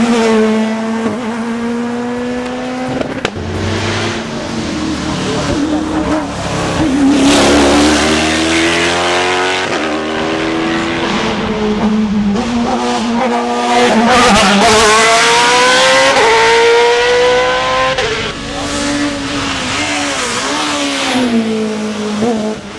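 Racing car engine at high revs, its pitch climbing and then dropping sharply at each upshift, several times over, as the car accelerates hard.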